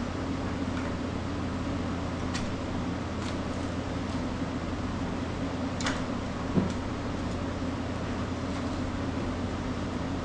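Steady low mechanical hum of machinery running, with a few light clicks and one sharper knock a little past halfway.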